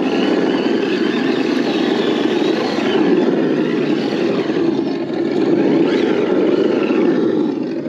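RC scale crawler truck driving over a dirt trail, its electric motor and geared drivetrain running steadily with a whine that rises and falls with the throttle.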